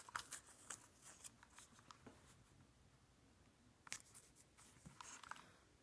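Faint, scattered rustles and light clicks of fingers handling a plush toy dog and the white label tucked under it.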